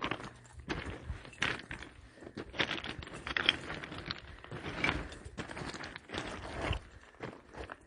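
Hiking footsteps crunching on a dirt forest trail, roughly one step every half second to a second.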